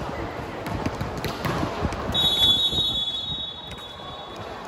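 Referee's whistle blown in one steady blast of about a second and a half, a couple of seconds in, with a few ball bounces and thuds around it.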